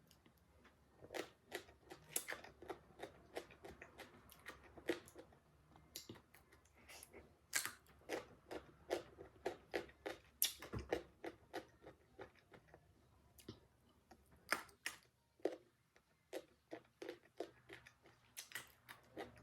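Close-up chewing of crisp unripe green mango: a steady run of sharp crunches and wet mouth clicks.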